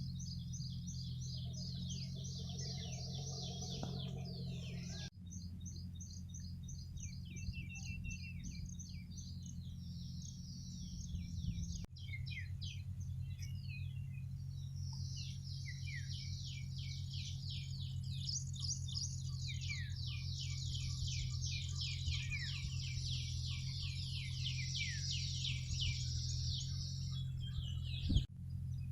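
Many small birds chirping and twittering at once in a dense, rapid chorus, over a steady low hum. The sound breaks off sharply three times and resumes straight away.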